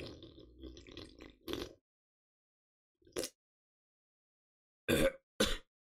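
A person drinking from an insulated metal water bottle: gulping and swallowing for the first second and a half or so. After that come one short sound about three seconds in and two louder, brief sounds about five seconds in.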